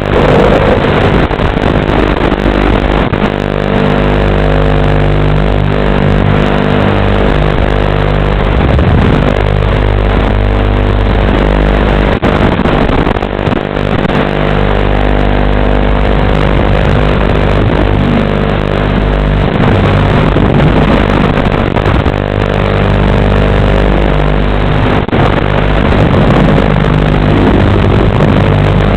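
Six-inch FPV quadcopter's motors and propellers buzzing loudly, the pitch shifting up and down as the throttle changes in freestyle flight.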